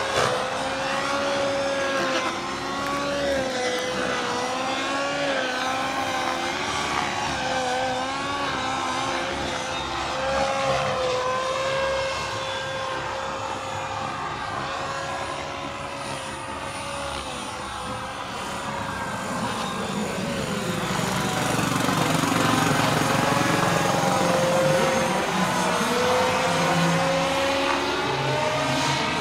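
Turbine-powered radio-controlled Bell 206 JetRanger scale model helicopter in flight: a steady turbine whine with rotor noise, its pitch wavering slightly as the model moves about, growing louder about two-thirds of the way through.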